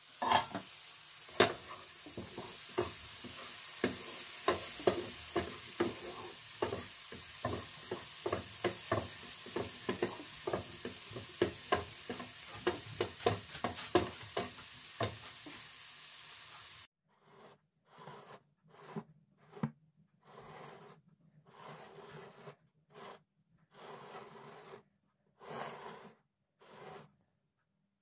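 Sliced mushrooms sizzling in a non-stick frying pan, with many sharp clicks and scrapes as a wooden spatula stirs them against the pan. About two-thirds of the way through the sizzling stops abruptly, and only short, separate bursts of sound follow.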